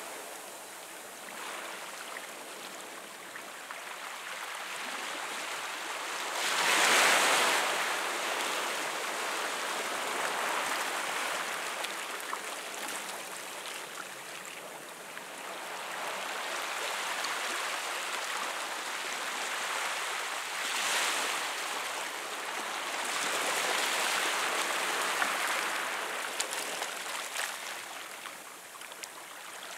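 Small sea waves washing in over rocks and a pebbly shore, a steady hiss of surf that swells and ebbs, with the biggest wash about seven seconds in and more surges near twenty and twenty-five seconds in.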